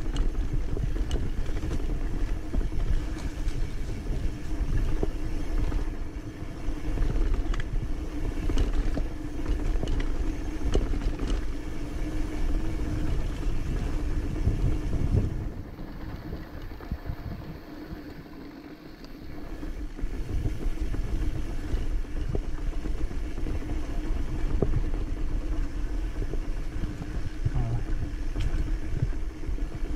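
Trail motorcycle engine running while riding an off-road dirt track, with low rumble underneath. It eases off and goes quieter for a few seconds around the middle, then picks up again.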